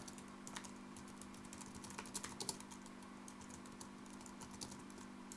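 Typing on a computer keyboard: a run of quick, irregular, faint key clicks.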